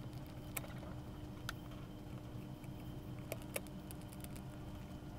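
A handful of light clicks and taps from a small screwdriver and small parts being worked on the rear of a Pentax 645 lens during reassembly, two of them close together past the middle, over a low steady hum.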